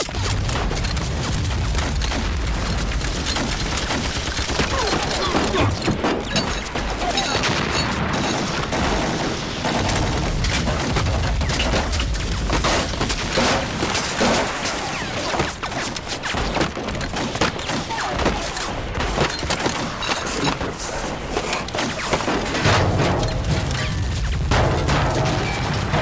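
Battle sound effects: continuous rapid gunfire mixed with explosions. The low booms are heaviest in the first few seconds and again near the end.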